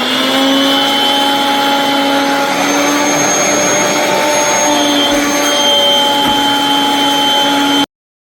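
Kirby vacuum cleaner running steadily, a loud motor rush with a high whine that shifts slightly in pitch, then stops abruptly near the end.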